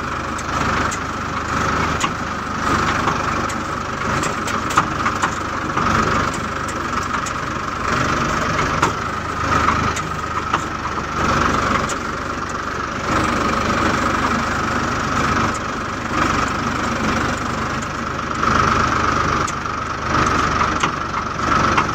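New Holland tractor's diesel engine running steadily under way on a dirt track, heard from the driver's seat, with scattered short clicks and rattles.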